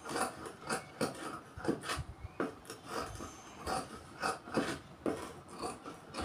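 Fabric handled on a cutting table: a series of short rubbing and rustling strokes, about two a second, as a cut blouse sleeve piece is laid on the chalked pattern and smoothed into place.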